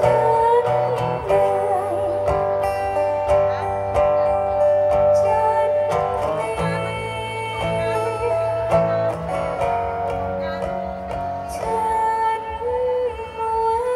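A woman singing a slow song live into a microphone over instrumental accompaniment, holding long notes with vibrato.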